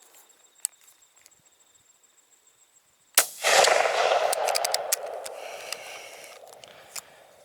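A single shotgun shot fired with a tungsten (TSS) BB load, about three seconds in. A long rolling echo follows and fades away over the next three seconds or so.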